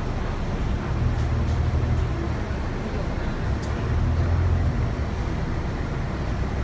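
Volvo B9TL double-decker bus heard from inside the lower deck: a low diesel engine rumble that swells twice.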